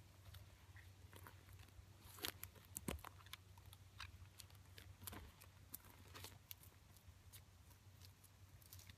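Scattered faint clicks and crackles, clustered and loudest around two to three seconds in, with a few more spread through the middle, over a low steady rumble.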